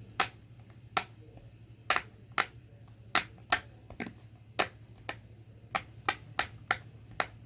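Square silicone pop-it fidget toy being popped bubble by bubble: about fourteen sharp, loud pops at an uneven pace of roughly two a second.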